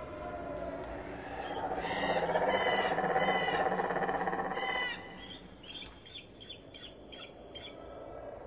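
Bird calls: a louder stretch of harsh calls lasting a few seconds, then a run of short, quicker calls.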